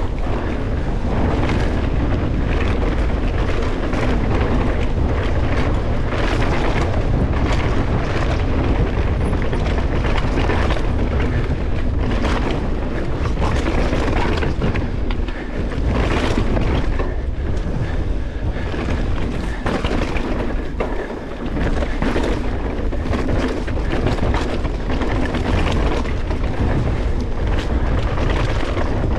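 Wind buffeting the microphone of a helmet-mounted action camera on a mountain bike descending at speed, over the crunch of tyres on a dry dirt singletrack, with frequent short knocks and rattles of the bike over bumps.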